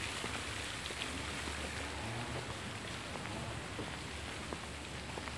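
Steady hiss of outdoor background noise with a low hum beneath, and a few faint ticks.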